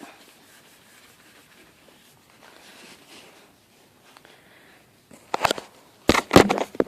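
Paper towel wiping across a car headlight lens: a few seconds of near quiet, then a short rubbing burst and several loud scrubbing strokes near the end.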